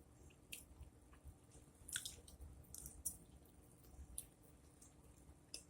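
Faint close-up eating sounds: chewing with a few soft, wet mouth clicks scattered through.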